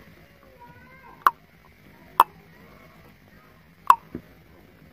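Puppies yipping during rough play: three short, sharp yips spread over a few seconds, a fainter one right after the last, and faint whining early on.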